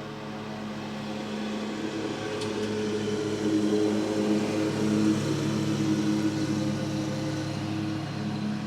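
Petrol lawn mower engine running steadily, growing louder toward the middle and easing off again near the end.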